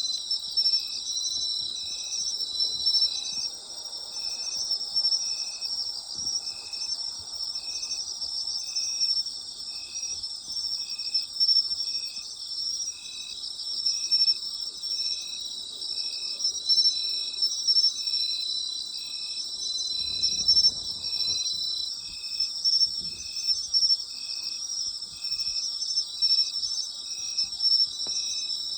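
Night chorus of autumn crickets: a dense, steady high-pitched trilling of many insects, with one insect chirping at an even rhythm about once a second. A brief faint low rumble passes about two-thirds of the way through.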